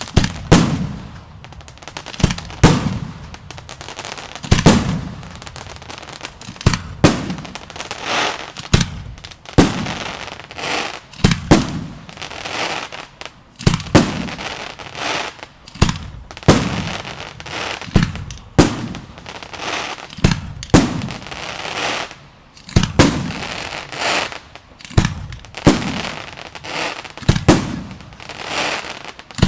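Aerial fireworks display: shell bursts bang one after another, about one a second, each with a booming echo and a crackle of sparks in between.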